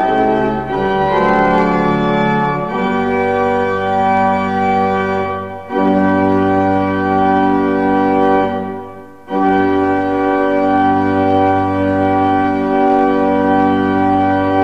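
Pipe organ playing slow, sustained chords as a closing voluntary, with two short breaks between phrases about five and nine seconds in. The last chord is held for about five seconds and released at the very end.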